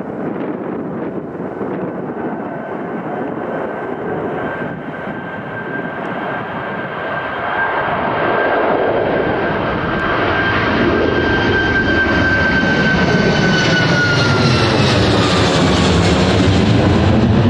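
Jet airliner's engines passing close by, growing louder, with a steady high whine that falls in pitch near the end as the aircraft goes past.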